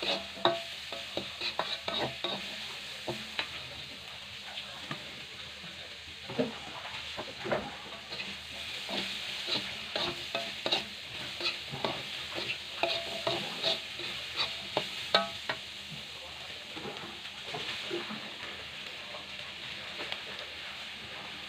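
Stir-frying vegetables in a wok: oil sizzling steadily while a metal spatula scrapes and clinks against the pan in irregular strokes, busiest at the start and again through the middle, easing off near the end.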